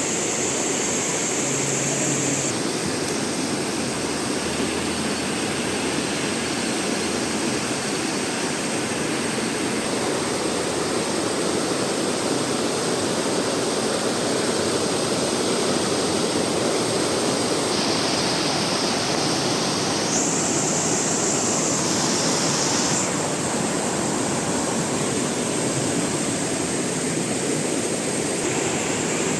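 River water flowing steadily, an even rushing noise with no let-up. A higher hiss joins in for a few seconds about two-thirds of the way through.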